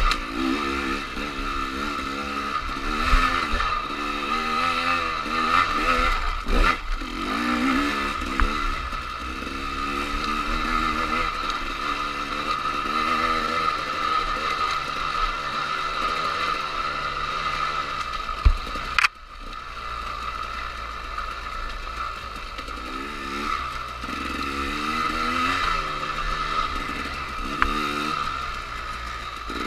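Dirt bike engine heard from on the bike, its revs rising and falling over and over as the throttle is worked on a rough trail, with a few sharp knocks from the bike over bumps. The engine note drops away briefly about two-thirds of the way through, then picks up again.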